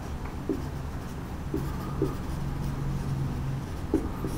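Marker pen writing on a whiteboard: a few short scratchy strokes as words are written.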